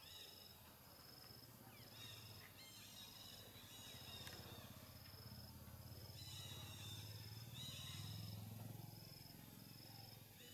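Faint outdoor ambience: an insect chirping in an even, repeating pulse of about three chirps every two seconds. A few clusters of higher chirping calls come and go, and a low rumble swells through the second half.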